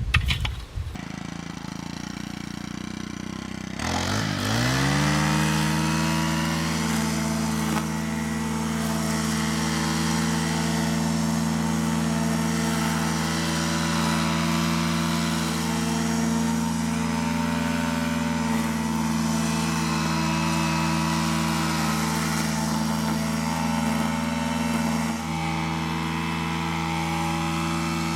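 A strimmer's small engine starting about four seconds in, rising quickly in pitch and then running at a steady speed.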